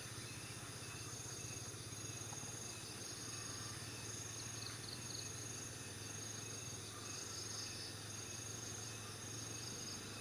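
A chorus of insects chirring, high-pitched and pulsing evenly a little more than once a second, over a low steady hum.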